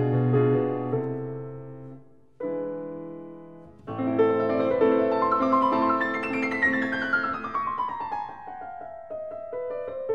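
Background piano music: single notes and chords, breaking off briefly in the first few seconds, then a long falling run of notes in the second half.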